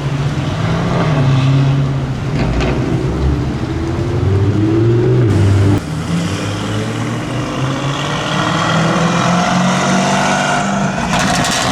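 Lamborghini Urus twin-turbo V8 with a Novitec aftermarket exhaust running and revving, its pitch rising and falling. There are sharp exhaust cracks about two and a half seconds in and again near the end.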